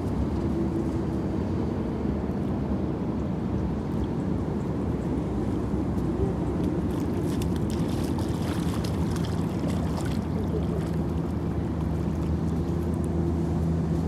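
A motor engine running with a steady low hum, its pitch shifting slightly now and then.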